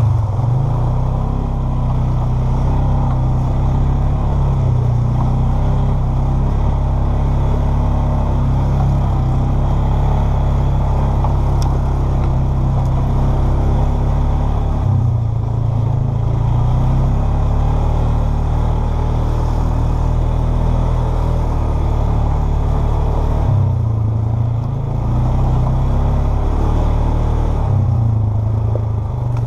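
Polaris Sportsman 500 ATV's single-cylinder four-stroke engine running while riding, its note dropping and picking up again a few times.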